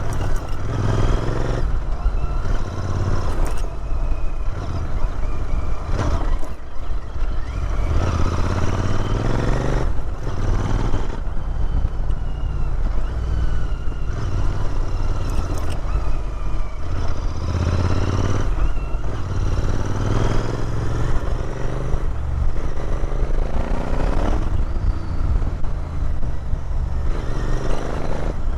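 Royal Enfield Interceptor 650's parallel-twin engine running under way on a rough trail, its pitch rising and falling again and again as the throttle opens and closes, with occasional knocks over bumps.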